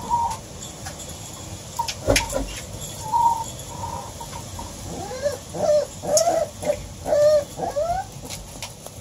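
A run of about eight short animal calls, each rising and falling in pitch, packed into the second half, with a few fainter calls earlier and a single thump about two seconds in.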